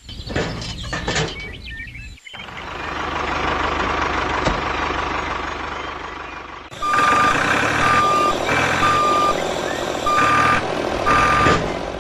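Vehicle running with a steady rumble that swells and fades; from about seven seconds in its reversing alarm beeps at one pitch, roughly once a second, over the engine.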